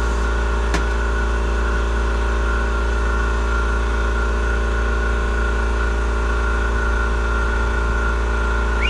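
Steady mechanical hum of a running shop machine, with one sharp click about a second in.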